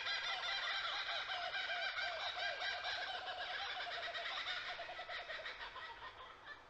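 A dense chorus of bird calls, warbling without a break, that fades away over the last second or two.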